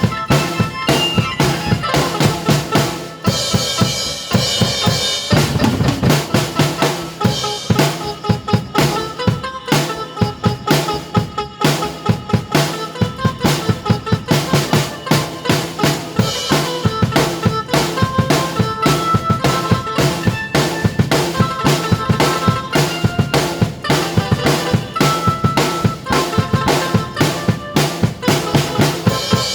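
Drum kit played in a steady, busy rhythm of bass drum and snare, with a keyboard melody over it and a cymbal wash about three seconds in.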